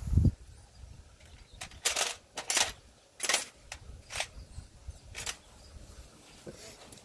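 Sandpaper scrubbing rust off the iron core of a lawnmower's ignition coil, in short irregular strokes about once a second, with a low thump at the start.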